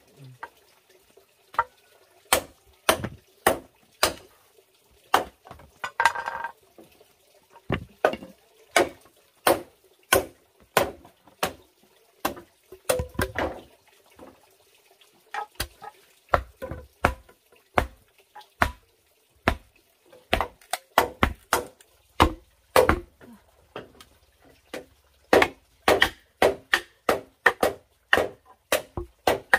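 Machete blades chopping and splitting green bamboo poles: a long run of sharp, hollow knocks, about one to two a second, coming faster near the end.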